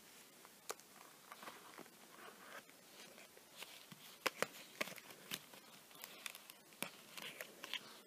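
Small cardboard knife box being handled and opened, its flaps and tray rustling, with scattered sharp clicks and taps as the folding knife is slid out. The loudest click comes a little after four seconds.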